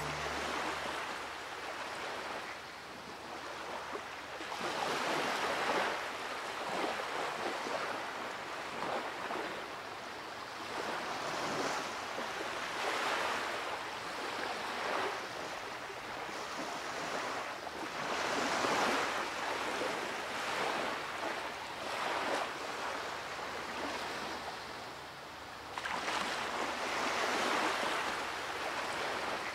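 Surf: waves breaking and washing on a sandy beach, the rush swelling and fading in surges every several seconds.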